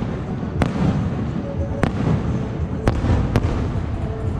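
Aerial firework shells bursting overhead: four sharp bangs, irregularly spaced about half a second to a second apart.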